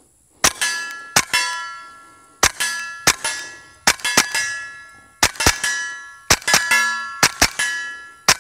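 KelTec P17 .22 LR pistol fired in a steady string, about one shot a second. Each shot is followed a moment later by the clang and ring of a hit steel target.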